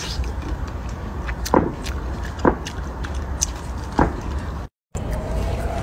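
Fresh cherries being bitten and chewed close to the mouth: a few sharp, crisp crunches about a second apart over a steady low rumble. The sound cuts out briefly near the end.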